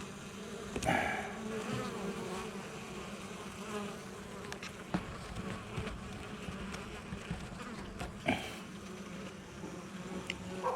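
Honeybees buzzing in flight around the hive entrance, a steady hum with a few brief louder passes and faint clicks.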